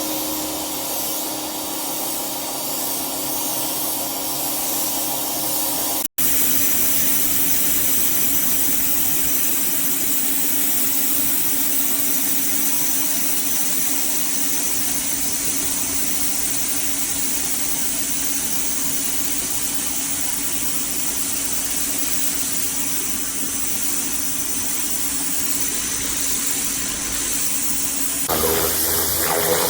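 Greenworks electric pressure washer running: a steady motor-and-pump drone with a hiss of spraying water. It cuts out for an instant about six seconds in and changes near the end.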